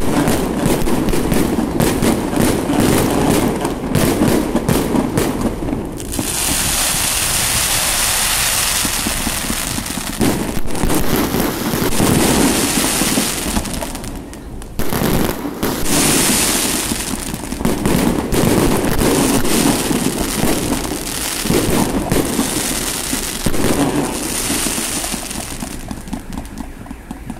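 Fireworks display: a dense run of rapid bangs for the first few seconds, then repeated bursts of hissing crackle over continuing explosions.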